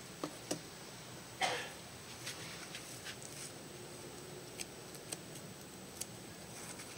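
Faint clicks, taps and brief rustles of gloved hands and a plastic stick working loose potting mix in a terracotta pot while planting a small cactus cutting, over faint steady hiss.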